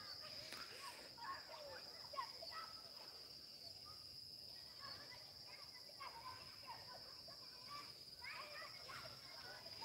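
Insects trilling in one steady high note, with scattered short bird chirps over it.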